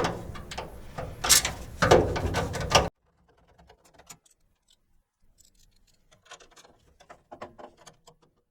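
Metal clicks and knocks of a nut driver and washer screws fastening a mounting plate inside a bill changer cabinet, several sharp ones in the first three seconds, then only faint scattered clicks.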